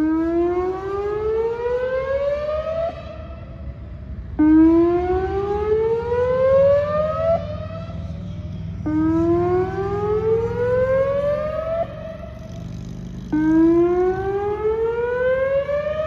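Whelen Vortex electronic outdoor warning siren sounding its weekly test. A tone glides up in pitch over about three seconds, then drops back and rises again, repeating about every four and a half seconds. It swells loud on each rise and fades between.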